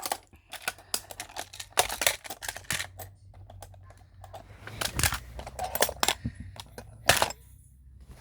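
Homemade manual fire alarm being handled: a run of irregular clicks and clacks from its magnet-held parts, with the sharpest knock about seven seconds in.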